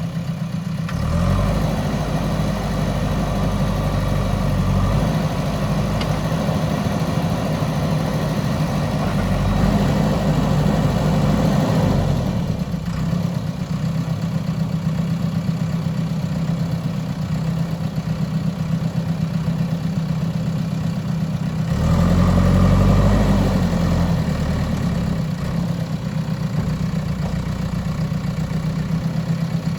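JCB backhoe loader's diesel engine running steadily, pulling harder under load twice: from about a second in for roughly ten seconds, and again for a few seconds near the end.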